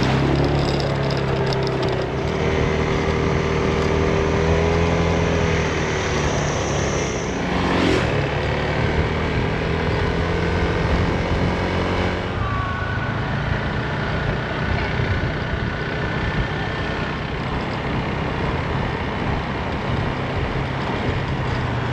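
Small motor scooter engine running steadily while being ridden, with the engine note changing about eight seconds in and again about twelve seconds in.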